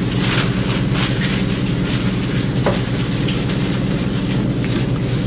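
Steady low hum with a rushing hiss, with a few faint rustles and clicks as a paper napkin is handled.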